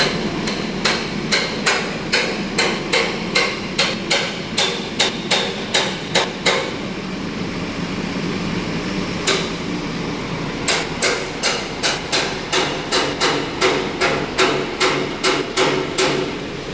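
Repeated sharp hammer blows, about three a second, in two runs separated by a pause of a few seconds with a single blow in it, over steady background noise from the road works.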